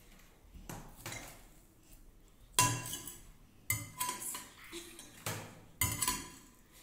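Metal potato masher pressed down on boiled potatoes, knocking against a glass dish: a string of irregular clinks and knocks, about nine, with a ringing note on the hardest strikes.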